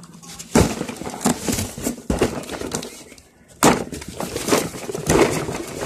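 A cardboard box and its packing being handled and unpacked: irregular rustles and knocks, with a short lull about three seconds in.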